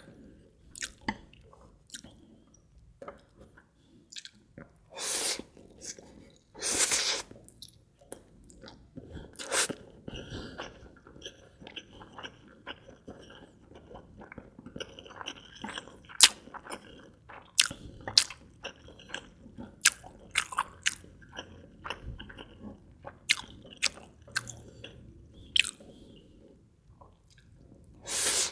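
Close-miked eating: wet chewing and smacking of fried instant noodles (Indomie Mi Goreng) and egg, with many short sharp clicks and a few longer slurping swishes.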